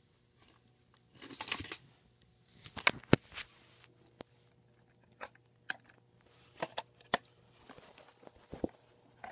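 Handling noises from working on an electric alarm clock: a rustling scrape about a second in, two loud clicks about three seconds in, then scattered sharp clicks and knocks. A faint steady low hum runs underneath.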